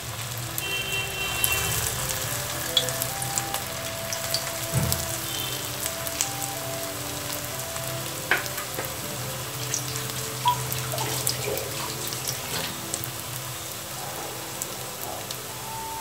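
Soya kababs shallow-frying in hot oil in a pan: a steady sizzle with scattered sharp pops. Background music with a simple melody plays along.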